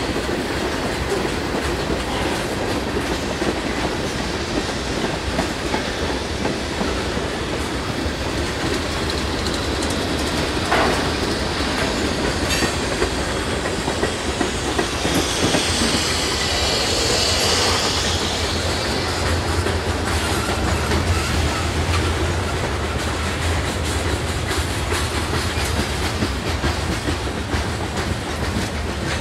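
Freight train of tank cars, covered hoppers and boxcars rolling past: a steady rumble and clatter of steel wheels on the rails with a few sharp knocks, and harsher, higher wheel noise for a few seconds about halfway through.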